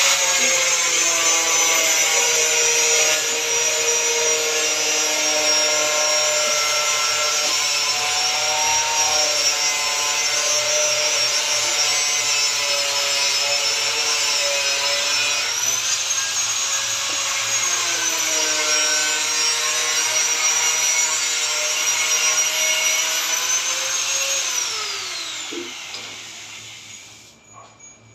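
Handheld angle grinder with a cutting disc running and cutting through a thin PVC wall panel, its whine dipping and rising in pitch as the disc takes the load. Near the end it is switched off and winds down with a falling whine.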